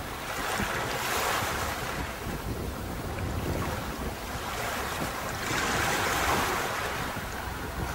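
Sea surf washing onto a beach: a steady rush of noise that swells twice, about a second in and again from about five and a half seconds, as waves break and wash up.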